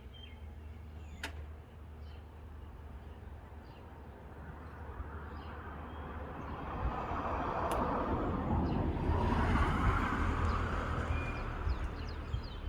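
A car passing by on the street, its tyre and engine noise swelling to a peak and fading again, over a steady low rumble, with faint bird chirps.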